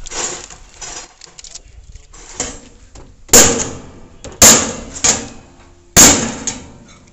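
Hammering on metal: four loud, sharp bangs roughly a second apart, starting about three seconds in, each ringing briefly. Before them come softer knocks and clicks.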